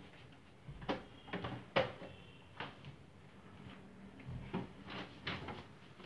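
Scattered light knocks and taps, about eight of them at uneven intervals.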